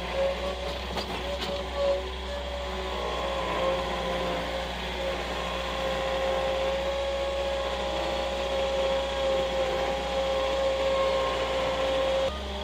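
Skid steer loader running, heard from inside the cab, with a steady whine over the engine while it works a brush grapple. A few sharp cracks come in the first two seconds as the grapple handles brush.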